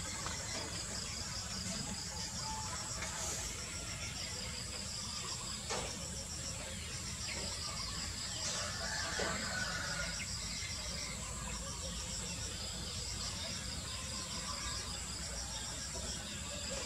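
Insects chirping in a steady, high-pitched pulsing trill, with a few faint clicks.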